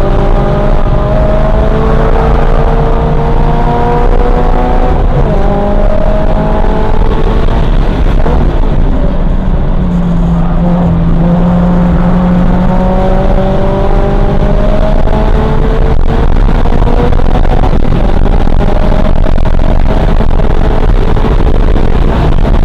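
2022 Toyota GR86's flat-four engine, fitted with an aftermarket JDL header, pulling hard under full throttle on a race lap. Its pitch climbs several times, breaking at gear changes, with a steadier stretch in the middle, over constant tyre and road noise heard from inside the cabin.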